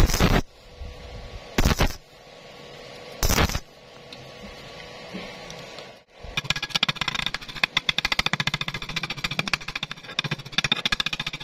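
Stick-welding arc on thin square steel tubing with a 2.0 mm E6013 rod: three short arc bursts about a second and a half apart, the rod struck and broken off in turn to keep heat low on the thin metal. After a pause, a fast run of metallic clicks and taps as slag is knocked off the weld bead.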